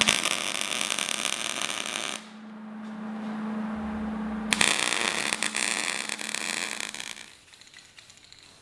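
Arc welder crackling while welding a handle onto a steel pipe cap, in two runs of about two seconds each, with a steady low hum in the pause between.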